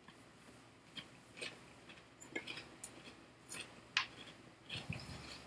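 Faint, irregular crunches and clicks from a crisp oatcake being eaten and handled, spaced roughly half a second to a second apart.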